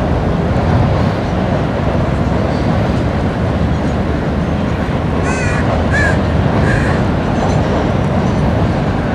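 Steady low rumble of an intermodal freight train crossing a steel truss bridge, with a crow cawing three times over it a little past the middle.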